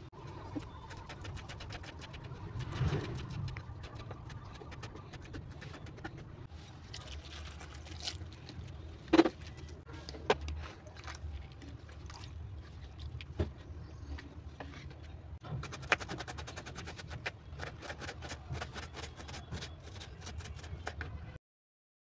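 Kitchen knife chopping on a wooden cutting board, with scattered knocks of bowls and utensils being handled; the loudest knock comes about nine seconds in. A fast, even run of chops, roughly five or six a second, starts past the middle and runs until the sound cuts off near the end.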